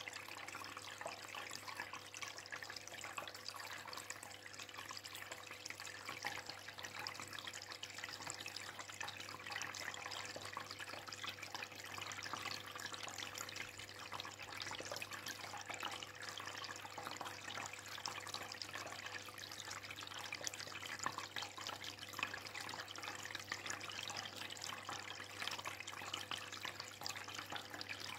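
Aquarium water bubbling and trickling steadily, with a low steady hum underneath.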